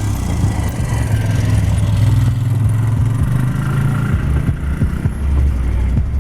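Vehicle engine running steadily, a low rumble with an uneven, buffeting low end.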